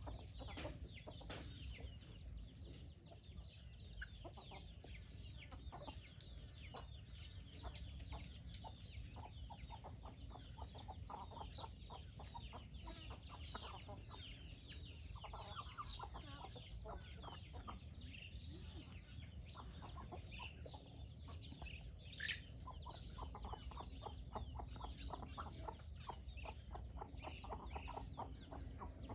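A flock of chickens: chicks giving many short high peeps and hens clucking in quick runs of soft notes, all fairly faint.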